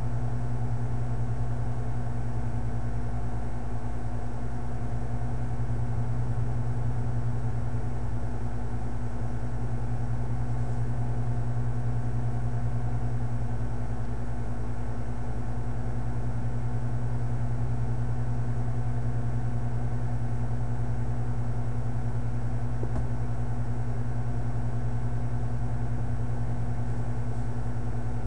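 Steady low hum with a few constant tones above it, unchanging throughout.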